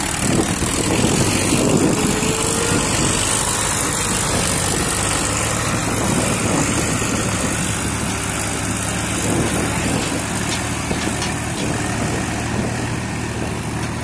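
Diesel tractor engines running steadily under load as a Swaraj 735 tractor hitched to a loaded trolley tows a Massey Ferguson tractor that is stuck in mud.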